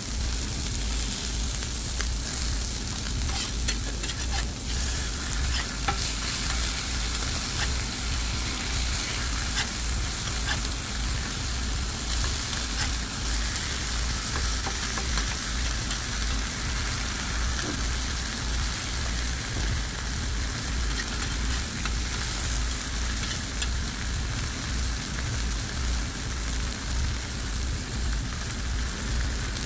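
Sea bream frying on a hot flat-top griddle: a steady sizzle with occasional sharp pops and crackles, most of them in the first several seconds.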